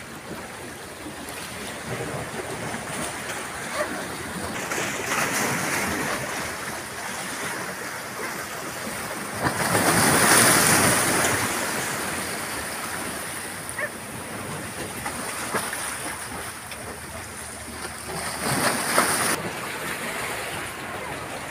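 Sea waves washing against a rock breakwater, with a loud splash as one breaks against the rocks about halfway through and a smaller surge near the end.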